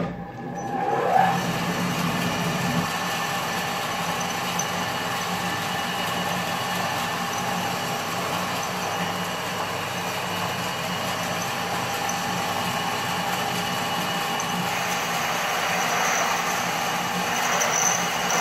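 Electric motor of a home-made belt-driven lathe starting and spinning up, its pitch rising over the first second or so, then running steadily while a twist drill in a tailstock drill chuck bores into a steel rod turning in the lathe chuck.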